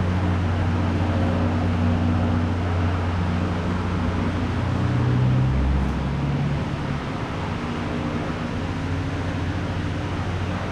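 A steady low mechanical hum, like a running engine or motor, whose pitch dips and then rises about five to six seconds in.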